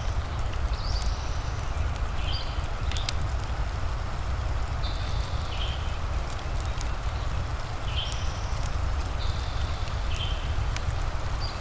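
Fireplace crackling: scattered sharp pops and clicks over a steady low rumble. Short high-pitched chirps come in several times.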